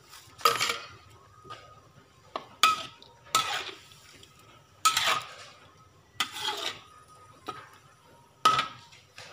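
Metal spatula scraping and clanking against a metal wok while stirring fish in gravy: about six loud strokes, one every second or so, with smaller taps between and a brief metallic ring on each.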